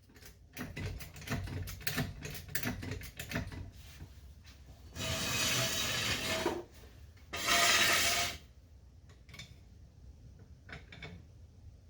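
Metal tools and parts clinking and knocking in a quick irregular run. Then come two loud hissing bursts, the first about five seconds in and lasting about a second and a half, the second shorter, about a second, near eight seconds in.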